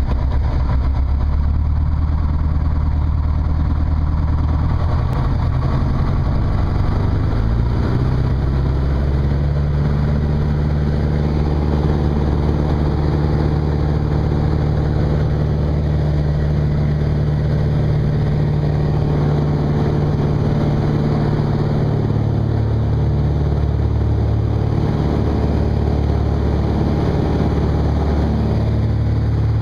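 Van's RV-9A light aircraft's piston engine and propeller running. The engine speeds up about eight seconds in, holds steady, dips briefly past the twenty-second mark and picks up again near the end.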